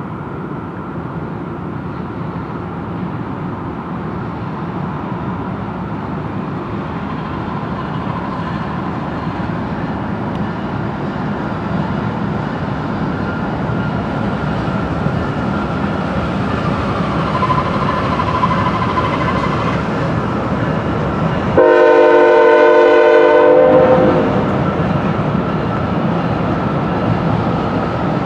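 An approaching train, its rumble growing steadily louder, and one long air-horn blast of a locomotive, the loudest sound, about three-quarters of the way in.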